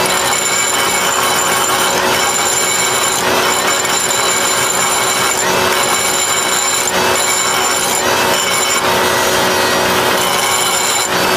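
Air die grinder running at speed, its abrasive disc grinding the steel edge of a tractor finishing mower blade to sharpen it: a steady high whine over a loud rasping hiss.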